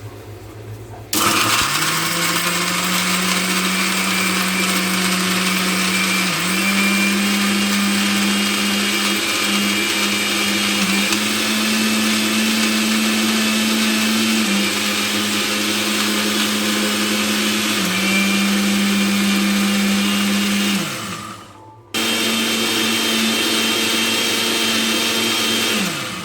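Butterfly Arrow 500 W mixer grinder's motor grinding chutney. It starts about a second in and runs loud and steady, its pitch dipping briefly a few times as the load shifts. It stops for a moment about 21 seconds in, then starts again and winds down near the end.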